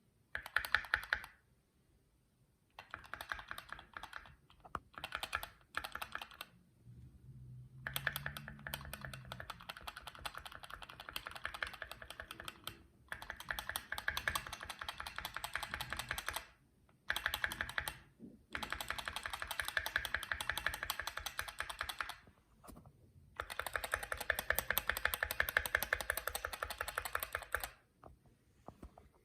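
Keychron Q2 aluminium-cased mechanical keyboard being typed on, with rapid clattering keystrokes in runs of a few seconds separated by short pauses.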